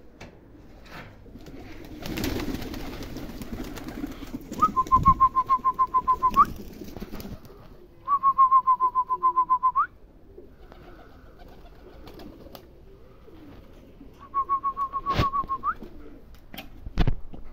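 A trilled whistle, given three times: each is a rapid run of short notes on one pitch that ends in a quick upward sweep. It is a pigeon keeper's call bringing young pigeons down to the loft. A few sharp knocks come in between.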